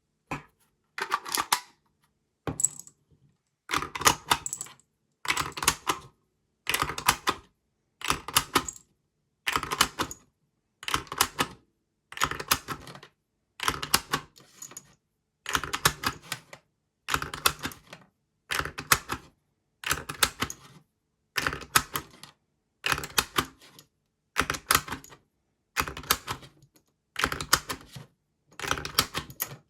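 5.56 mm cartridges being pressed one at a time into an AR-15 magazine through a 3D-printed PETG speed loader. Each round gives a short cluster of plastic and metal clicks, repeating steadily about every second and a half.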